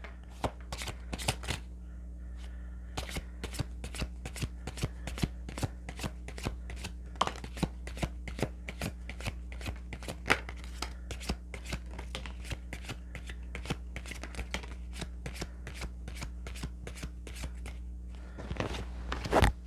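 A deck of tarot cards shuffled by hand: a long run of quick card snaps and flicks, a few a second, over a steady low hum.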